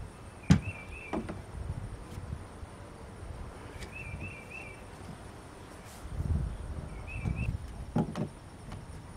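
Sharp hollow clicks and knocks of PVC pipe fittings being handled and pushed together: the sharpest about half a second in and another near the end, with low rumbling handling noise in between. Three small clusters of short high chirps sound over it.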